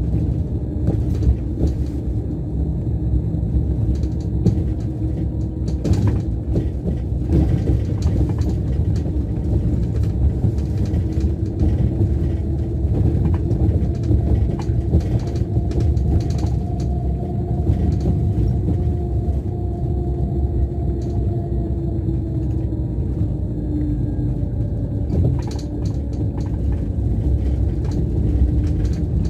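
Scania K410 coach's rear-mounted Scania DC13 inline-six diesel, heard from inside the lower deck while the coach drives: a steady low rumble with a humming engine note and road noise. A few sharp knocks or rattles come about six seconds in and again near the end.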